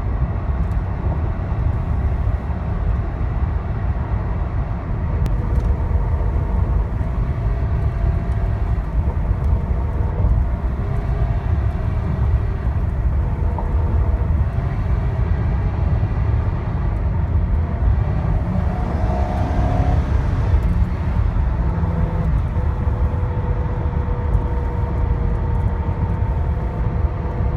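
2006 Ford Crown Victoria making an odd whirring noise: steady whining tones over a heavy low rumble. The cause is unknown to the owner.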